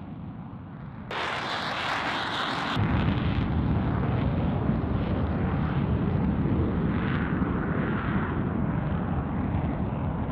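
Jet roar of F-35A fighters taking off and climbing out, from their single F135 afterburning turbofan engines. A hissing roar cuts in suddenly about a second in, and from about three seconds on it becomes a deep, loud, steady rumble.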